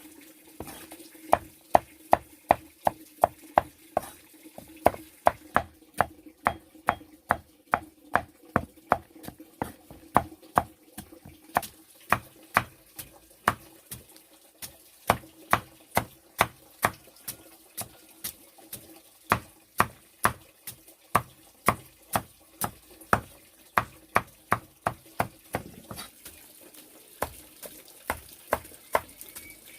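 Steady chopping with a knife, sharp strokes at about two to three a second, with a brief slowdown near the end, over a faint steady hum.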